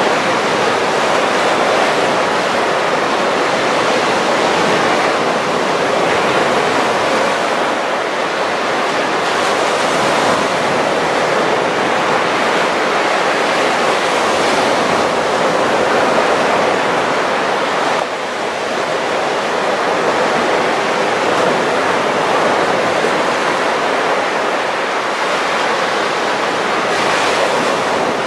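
Baltic Sea surf on a sand beach: a steady rush of small waves breaking and washing up the shore, swelling now and then as a wave breaks.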